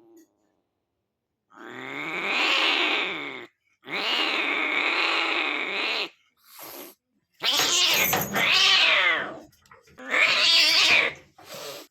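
An animal calling: a series of loud, drawn-out cries, each about one to two seconds long, with short gaps between them and a couple of brief calls near the middle and the end.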